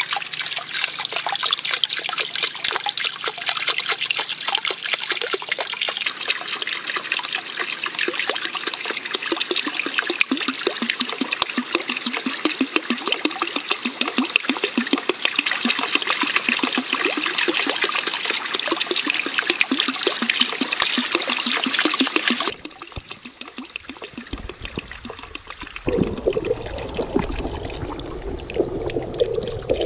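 Water trickling and splashing steadily into a small fish pond from a bamboo water wheel. About 22 seconds in the sound cuts off and drops quieter. From about 26 seconds it turns to a muffled, low water sound as heard underwater.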